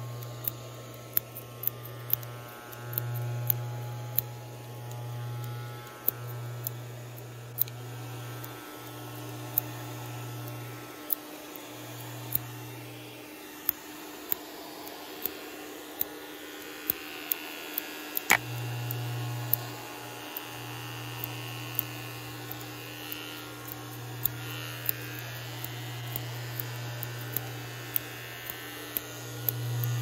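An electric hair clipper buzzes in stretches of a few seconds, switching off and on again several times. Short sharp clicks are scattered throughout.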